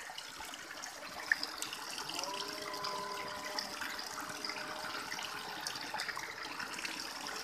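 Thin streams of water trickling steadily from a row of cow-head wall spouts and spattering onto a metal drain grate below.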